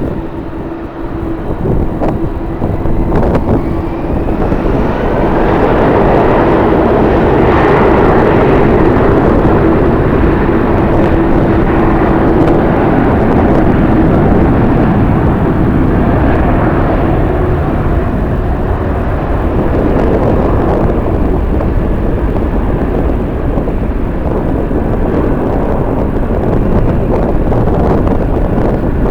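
Jet airliner passing the observation deck, its engine noise swelling to a peak about eight to fourteen seconds in and then easing, with a steady hum under it and strong wind on the microphone.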